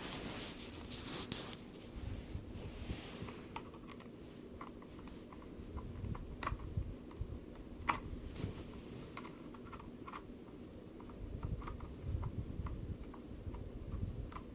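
Irregular light clicks and taps of a screwdriver and small plastic parts as screws are taken out of a Radio Shack 1/10-scale RC Hummer H2's wheel section.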